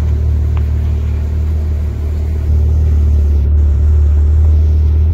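Porsche Panamera engine running steadily through an aftermarket non-valved exhaust, a deep low-pitched exhaust note that gets a little louder about halfway through.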